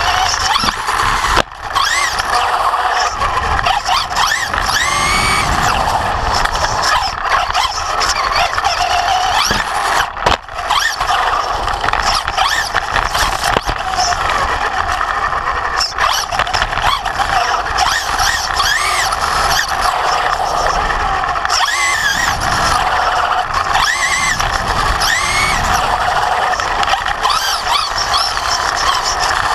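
Traxxas Slash 2WD RC truck's electric motor and gear drive whining, the pitch rising and falling again and again with throttle, heard from a camera mounted on the truck. A few knocks cut through.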